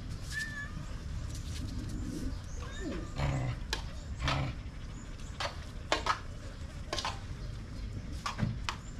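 Dogs eating, with irregular crunching and clicking sounds throughout.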